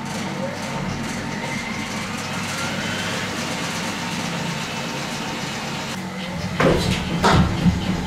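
Miele washing machine starting its spin: the drive motor whines up in pitch over the first few seconds, then from about six seconds in the drum wobbles and knocks hard twice against the housing. The owner takes the banging for worn-out shock absorbers that give way suddenly when the spin starts.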